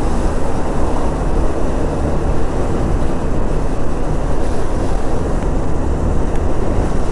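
Motorcycle riding along a busy road: steady wind and road noise over the microphone, with the engine running underneath.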